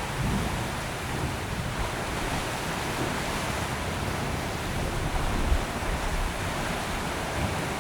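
Steady wind and surf noise with a low rumble of wind buffeting the microphone, and a brief gust about five and a half seconds in. No gull calls stand out.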